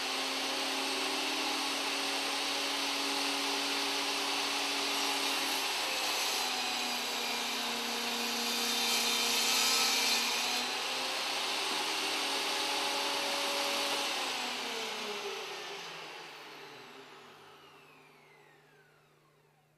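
Ryobi BT3100 table saw running with its blade tilted for a bevel cross cut, getting louder from about eight to ten seconds in as the blade cuts through the wood. About fourteen seconds in it is switched off, and the motor's whine falls as the blade spins down.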